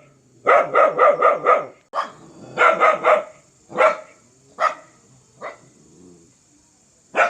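A dog barking fiercely: a quick volley of about five barks, then shorter runs of barks and single barks with longer pauses between them.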